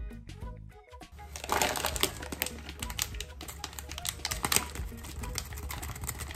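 Hands squishing and mixing marinated chicken pieces with cornflour in a ceramic bowl: a dense, irregular run of wet clicks and crackles that starts about a second and a half in.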